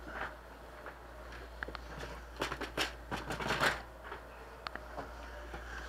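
Small items being picked up and moved around on a desk while tidying: rustling and light clatter, busiest in the middle, with scattered clicks.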